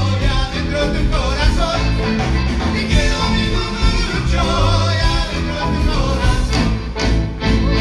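A Latin rock band playing with a strong bass line and a lead singer. The instruments include accordion, bass guitar, electric guitar and keyboards.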